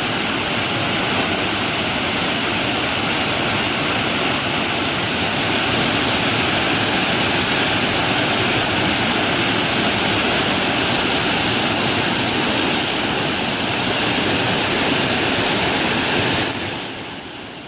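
Burney Falls, a large waterfall, rushing steadily and loudly; the sound fades away near the end.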